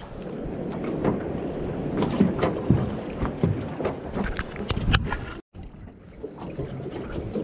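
Small boat drifting: water slapping and lapping against the hull, with scattered knocks and wind on the microphone. The sound cuts out briefly about five and a half seconds in.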